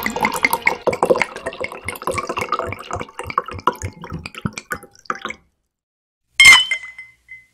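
A drink being poured into a stemmed glass, splashing and fizzing; it stops about five seconds in. About a second later comes a single sharp, loud hit with a short ringing tone.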